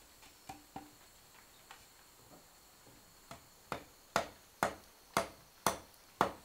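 A blade chopping into wood: a few light taps, then five hard, sharp chops about half a second apart in the last two seconds.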